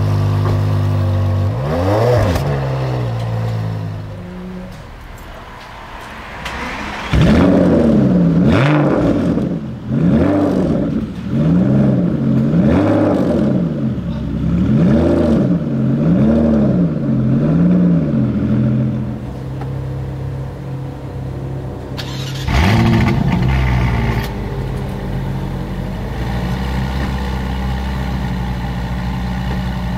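Three supercar exhausts in turn. First, a Ferrari 599's V12 idles and is blipped once. Then a white Aston Martin Vantage fires up with a flare and is revved about nine times in quick succession, roughly once a second, before settling to idle. Last, a Ferrari California T's twin-turbo V8 starts with a sharp flare and settles into a steady idle.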